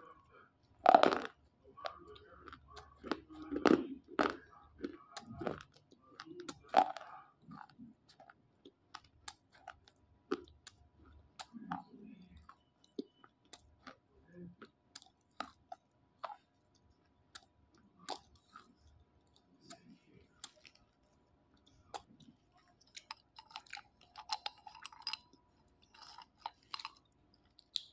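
Dry slate pencils being bitten and chewed close to the microphone: several loud crunches in the first seven seconds, then many short, crisp crackles and clicks as the pieces are ground between the teeth.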